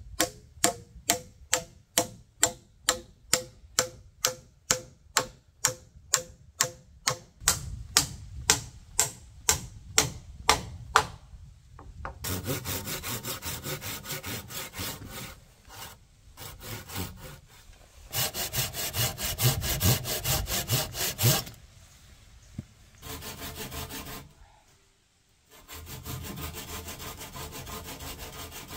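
Steel hammer driving a long nail into a log stair step: quick, even blows about three a second, with a ringing note, stopping about eleven seconds in. Then a hand saw cutting into a wooden post in long spells of back-and-forth strokes, broken by short pauses.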